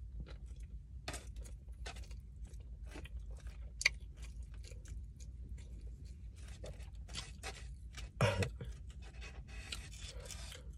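Close-up chewing and mouth noises while eating, with a plastic fork scraping and picking at food in a styrofoam takeout tray. A sharp click about four seconds in, and a short low hum about eight seconds in.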